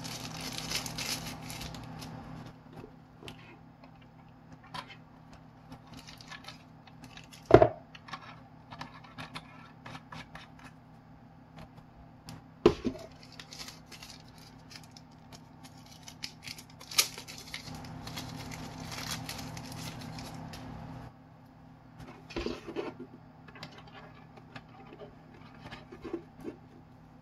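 Protective plastic film being peeled off and crinkled in the hands, with rustling, scraping and small clicks of handling new parts. Three sharp knocks stand out, about seven, twelve and seventeen seconds in, over a faint steady low hum.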